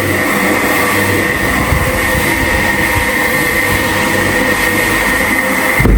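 Carpet-cleaning machine running steadily, a loud motor noise with a high whine.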